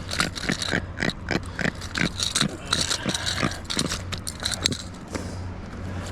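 Freshly landed jack crevalle grunting out of the water: a quick, irregular series of short croaks, about three a second, that stops about five seconds in.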